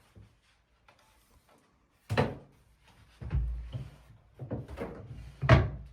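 Kitchen knocks and bumps from handling things: a sharp knock about two seconds in, a stretch of low bumping and scraping, and the loudest knock near the end, like cupboard doors or drawers being opened and shut.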